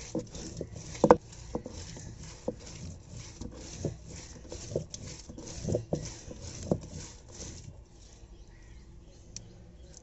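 Stone roller of an ammi grinding stone being pushed back and forth over fresh wet grass on the stone slab: quick rhythmic scraping strokes, about three a second, with occasional louder knocks of stone on stone. The strokes stop about eight seconds in, leaving softer sounds of the wet mash being handled.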